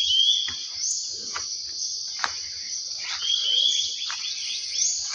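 Steady high-pitched chirring of insects, with footsteps crunching through leaf litter and undergrowth about once a second. A bird gives a short rising chirp twice.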